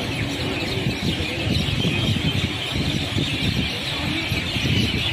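Passenger train running, heard from an open coach window: wheels rumbling and knocking irregularly on the track, with a steady high-pitched noise over it.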